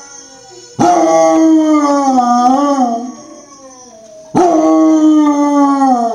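Basset Hound howling: two long howls, the first wavering in pitch near its end, the second sliding down in pitch as it ends.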